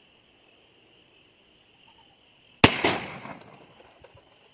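A single shotgun shot about two-thirds of the way in, its report dying away over about a second, over steady high-pitched insect chirring.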